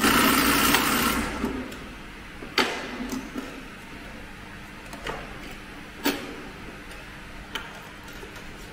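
Hands at work on a heavy-duty big-bag sewing machine: a loud rushing burst lasting about a second and a half, then scattered single clicks and knocks as parts of the machine are handled and adjusted.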